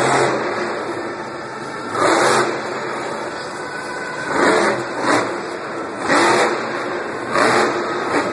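El Toro Loco monster truck's supercharged V8 engine revving in about six sharp throttle surges over a steady running note as the truck drives across the arena floor.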